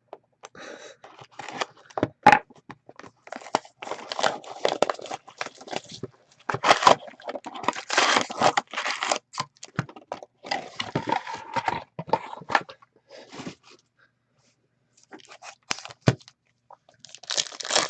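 Foil trading card pack wrapper being torn open and crinkled, in irregular bursts of rustling with a few sharp clicks as the cards are handled, and a short pause near the end.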